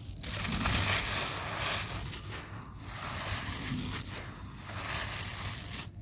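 Gritty cement shapes crumbling, a dense gritty crunching and crackling that comes in waves, with two brief lulls.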